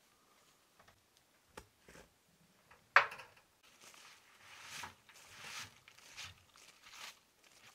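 A sharp knock about three seconds in, then a run of rustles and scrapes as a stone, dry leaves and boards are shifted on a wooden well cover by gloved hands.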